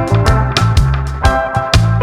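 Background music with a steady beat and a bass line under sustained melodic notes.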